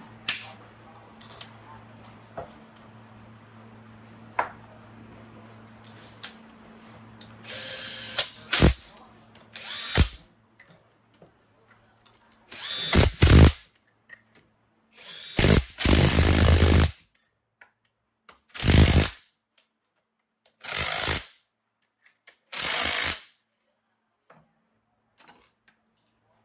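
A handheld power tool run in about six short bursts, each up to about a second and a half long, after a few knocks on metal.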